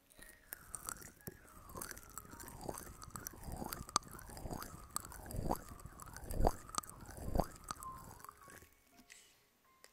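Close-miked ASMR ear-massage sounds: rapid scratching and rubbing on the microphone with small clicks, and three heavier dull knocks around the middle. The sounds die down near the end.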